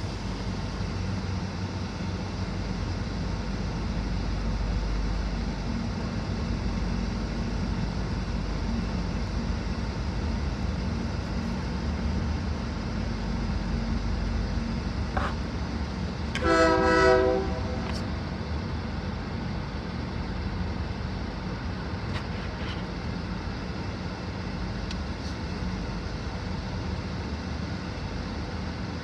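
A train moving slowly with a steady low rumble. About halfway through, its horn sounds once in a short blast, under a second long.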